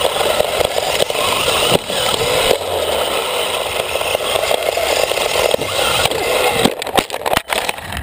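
Radio-controlled car driving over wood-chip mulch, its wheels and chassis making a loud, steady crackling crunch through the chips, with a few sharp knocks near the end.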